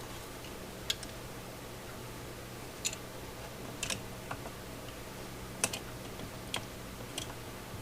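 Scattered light clicks and taps, about seven in all and irregularly spaced, from handling the chainsaw and its bar-mounted sharpener, over a steady low hum.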